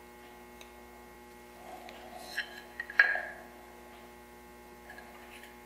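Steady faint hum with light clicks of a small marking tool being handled at the bench, the sharpest one about three seconds in, ringing briefly.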